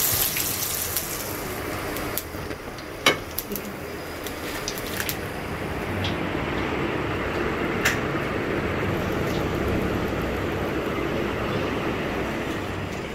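Hot oil sizzling steadily as batter-coated spinach-leaf pakoras deep-fry in a wok, with a few sharp pops.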